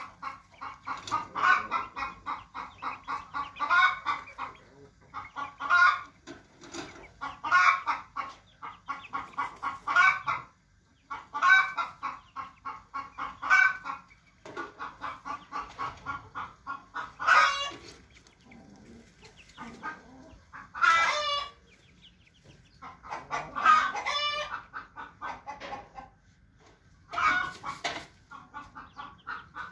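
Chickens clucking in quick runs of short clucks, several a second. In the second half this gives way to a few longer, louder calls every few seconds.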